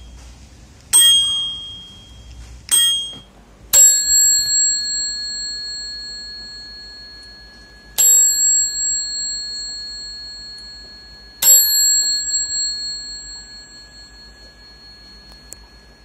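A cheap unbranded chrome bicycle bell struck twice, each a high ding that dies away within a second. From about four seconds in, a brass LitePro dome bicycle bell is struck three times, each a lower, clear ring that hangs on for several seconds.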